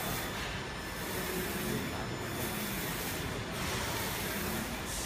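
UV flatbed printer running a print on ceramic tiles: the print carriage with its UV curing lamp travels over the bed with a steady mechanical whir and hiss that swells and dips in a regular rhythm about every one and a half seconds.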